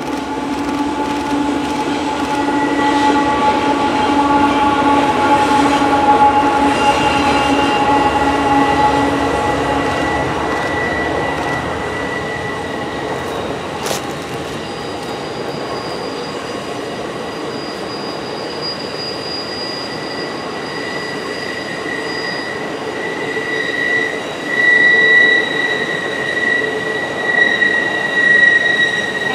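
Union Pacific passenger train on a tight mountain curve. The diesel locomotives pass first with a steady engine drone. Then the passenger cars roll by with steady, high-pitched wheel-flange squeal from the curve, which swells near the end.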